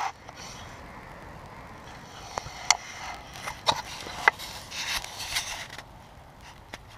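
Handling noise from a small action camera: a few sharp clicks and knocks, spaced irregularly between about two and four and a half seconds in, over a steady background hiss.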